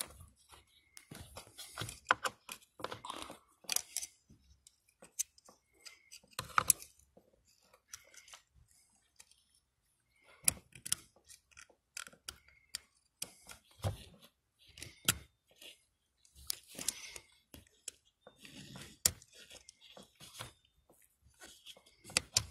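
A small pick scraping and clicking inside the engine's oil pressure sensor port as it prises at the oil screen, in irregular sharp clicks and short scratches.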